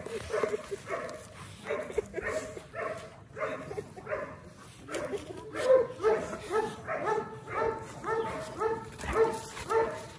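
Doberman whimpering and yelping in short pitched cries, about two a second, the cries growing clearer and more tonal about halfway through; the dogs are locked in a mating tie.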